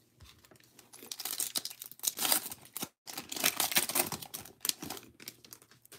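Plastic wrapper of a 2022 Bowman baseball card pack being torn open and crinkled by gloved hands, in two spells of crackling with a short break about three seconds in.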